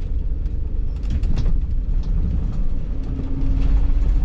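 Low road and engine rumble inside a Sprinter camper van's cabin while it drives, with a few light rattles about a second in.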